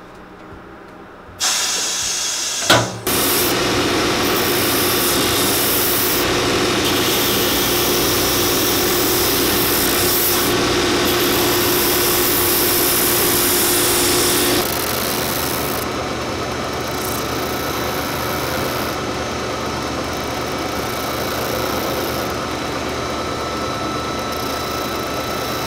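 Cobbler's finishing machine running, with the spinning abrasive wheels sanding and trimming a new stacked leather heel and leather sole edge. The machine starts about a second and a half in, with a sharp knock soon after. A little past halfway the sound drops slightly and changes as the work moves on to the sole edge.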